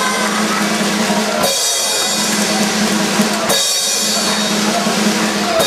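Drum-led circus music, with a sharp crash about every two seconds over a steady low note.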